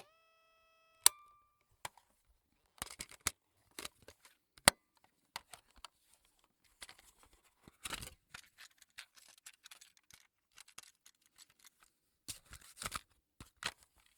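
Plastic clicks, clacks and rattles of a cassette tape being handled. A brief pitched tone is cut off by a sharp click about a second in, the loudest sound, followed by irregular clattering that bunches up near the middle and again near the end.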